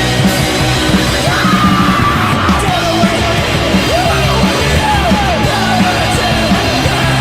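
Rehearsal recording of a rock band playing a song, with a shouted vocal coming in a little over a second in.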